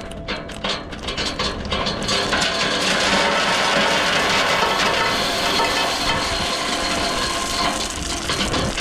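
Load of 1-inch clean rock sliding out of a tipped dump trailer: scattered knocks of stones for about two seconds, then a loud, steady rush of gravel pouring out.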